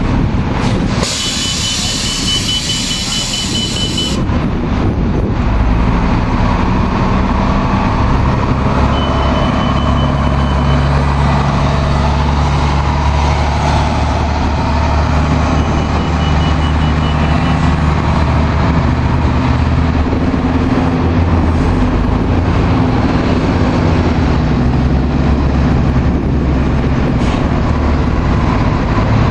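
Diesel city transit bus engine running, with a loud air-brake hiss between about one and four seconds in. Short runs of high beeping come twice.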